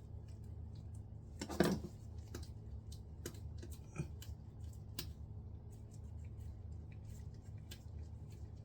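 Scattered light clicks and scrapes of hand tools and small metal hardware being handled while working on a toilet flange and its bolts, with one louder scrape about a second and a half in. A steady low hum runs underneath.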